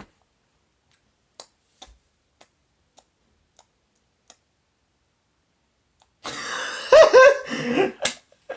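Near silence broken by a few faint, scattered clicks, then about six seconds in a person lets out a loud, breathy, cough-like vocal outburst lasting about two seconds.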